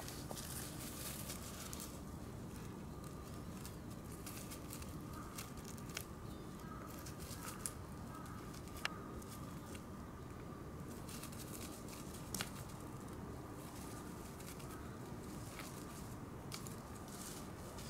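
Quiet outdoor ambience with soft rustling and a few scattered sharp clicks and crackles from Shiba Inu dogs moving and playing on dry grass and fallen leaves, over a faint steady high tone.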